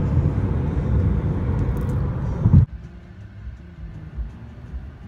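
Car driving at highway speed: a loud steady rush of road noise that cuts off suddenly about two and a half seconds in, giving way to a much quieter low hum inside the cabin.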